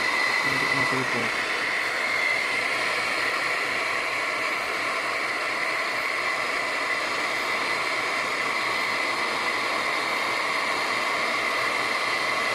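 Deli hot-air plastic welder gun running, its blower giving a steady rush of air with a high whine through it.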